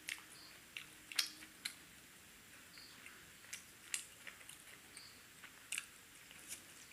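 Close-miked mouth sounds of a person chewing food: irregular wet clicks and smacks, the sharpest about a second in.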